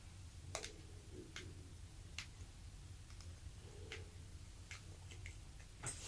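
Faint, irregular clicks and taps of a spoon against a plastic measuring cup and bowl as glue is scraped out, about six light ticks over a few seconds, over a low steady hum.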